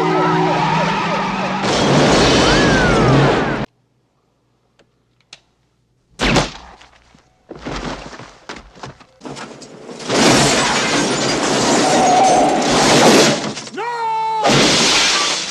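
Action-film sound effects in quick cuts: a loud crash, then a sudden silence. After that come a single sharp bang, bursts of loud crashing and breaking, a short pitched squeal, and another crash.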